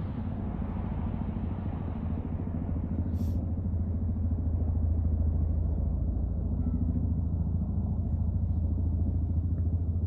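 Helicopter rotor beating in a fast, steady low rhythm, growing louder about four seconds in.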